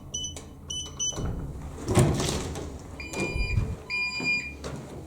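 Electronic beeping: four quick high beeps in the first second, then two longer, lower beeps about three and four seconds in, with knocks and shuffling between them.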